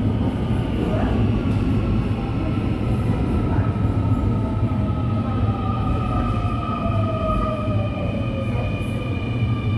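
Seoul Subway Line 2 electric train pulling into the station and slowing, with a steady low rumble of wheels on rail. Over it run several whining tones that slowly fall in pitch as it slows.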